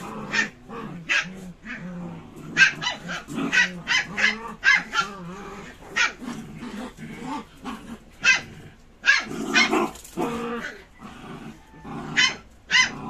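A pack of dogs jostling together, barking and yipping in short sharp bursts over low, steady growling. A louder flurry of barks comes about nine seconds in.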